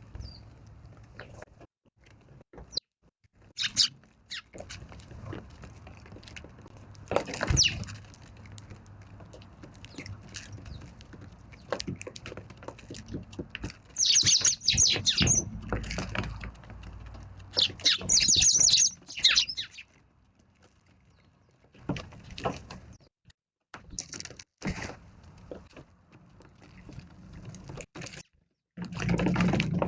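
Eurasian tree sparrows chirping, loudest in two bursts of quick, high chirps around the middle, with scattered short clicks and taps between.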